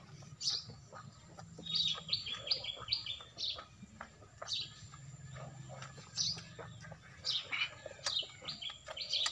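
Small birds chirping: short, high, quick notes and falling calls repeated throughout, with a fast run of chirps about two seconds in, over a low steady hum.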